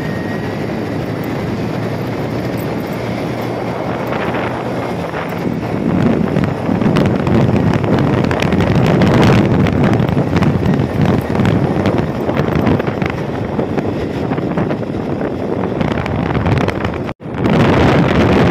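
Wind rushing over the microphone together with the steady running noise of a moving vehicle, growing louder about six seconds in and cutting out for an instant near the end.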